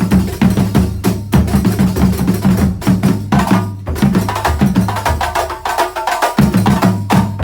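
Terbang frame drums and other percussion of a kuntulan ensemble playing a fast, dense rhythm. There are short breaks about a second in and near the end, and the low drums drop out for about a second past the middle.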